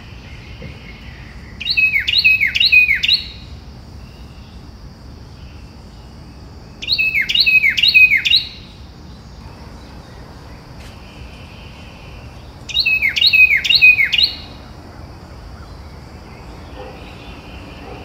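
A bird calling in three bursts about five to six seconds apart, each a quick run of four sharp, downward-sweeping notes, over a faint steady background hiss.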